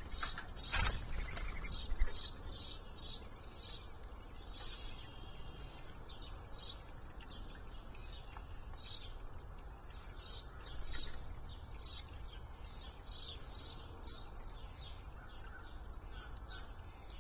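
Birds calling: a long run of short, high chirps, roughly one every half second, with a single sharp knock about a second in.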